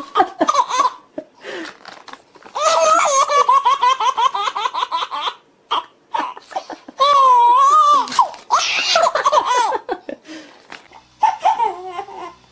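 A baby laughing hard in long bouts of belly laughter, with short pauses for breath between them.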